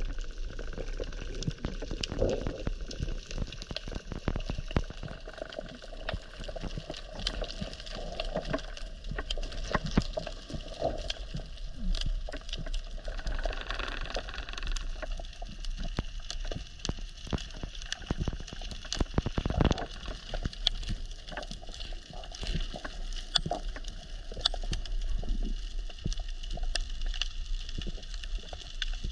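Underwater ambience on a rocky reef: a steady crackle of many scattered clicks and pops over a low water rumble, heard through an underwater camera housing.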